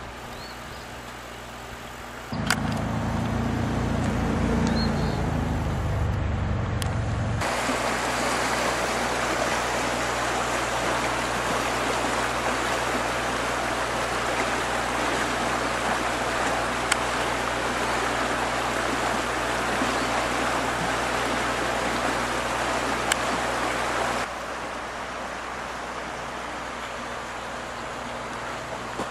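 Steady outdoor rushing noise that switches abruptly in loudness several times. For a few seconds near the start a loud, flickering low rumble sits under it.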